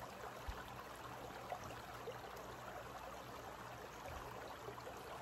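Shallow creek running over rocks: a faint, steady rushing of water.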